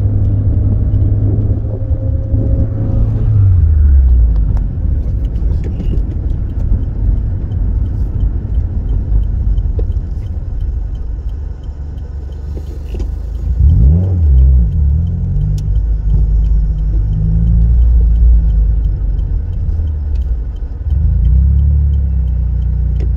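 A car's engine and road rumble heard from inside the cabin while driving. The engine note drops about three or four seconds in as the car slows, then climbs again about fourteen seconds in and once more near the end as it pulls away.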